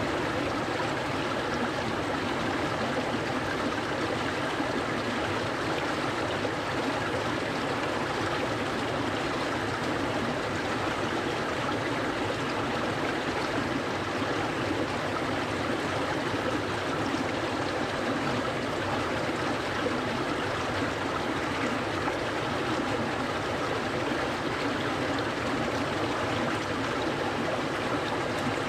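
A clear stream flowing: a steady, even rush of running water with no breaks or separate sounds.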